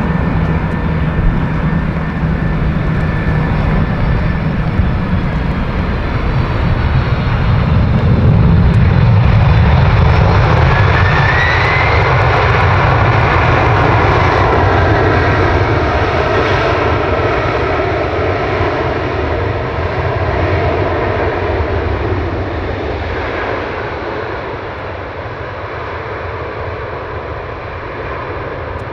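Boeing 747-400F four-engine jet freighter landing. The jet engine noise builds to its loudest about a third of the way in, with a brief rising whine. It then slowly fades as the plane rolls out along the wet runway.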